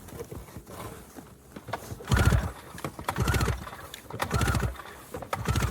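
Polaris RMK snowmobile's two-stroke engine turned over by hand with its recoil pull-start cord, spark plugs out. About two seconds in, it spins up and runs down with each pull, four pulls about a second apart. This is cranking a flooded engine to blow out the too-rich fuel mixture.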